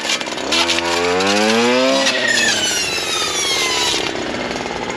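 STIHL FS 240R brush cutter's two-stroke engine revving up in a rising whine from about half a second in, then running at full throttle, its pitch sagging as the 9-inch Forester saw-chain blade cuts into brush.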